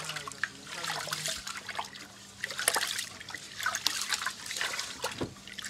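Rice being washed by hand in an aluminium pot of water. Fingers stir the grains, making irregular swishing and small splashes.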